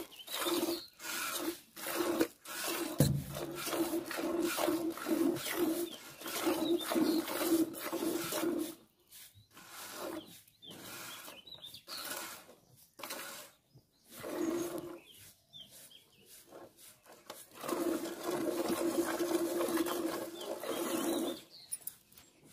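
Cow being hand-milked into a steel pail: milk squirts hissing into the bucket in a steady rhythm of about two strokes a second. The strokes thin out and break up around the middle, then run strongly again near the end.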